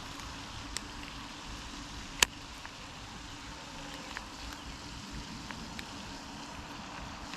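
Steady splashing of a pond's running fountain, with a few faint clicks and one sharp click about two seconds in.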